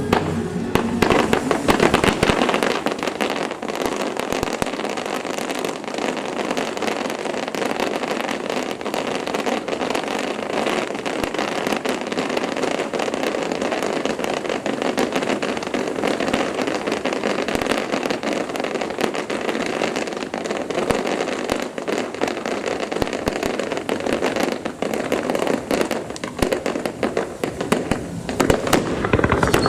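Fireworks going off without a break: a dense stream of crackling and small sharp pops, with few deep booms.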